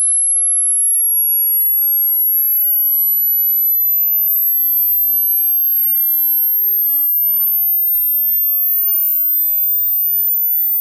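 Hearing-test sine-wave sweep: a single very high-pitched pure tone, rising slowly and steadily in pitch at an even level.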